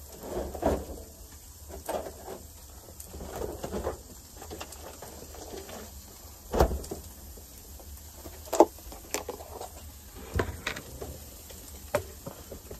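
Scattered knocks and clunks of camper cupboard doors and the things inside being handled while someone rummages in the kitchen cabinets, about eight separate knocks, the loudest about halfway through.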